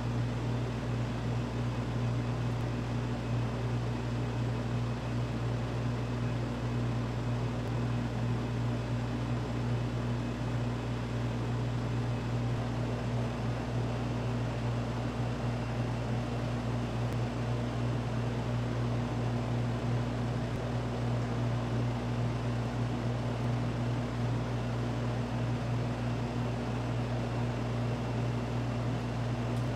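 Steady machine hum with an even low drone, running without change.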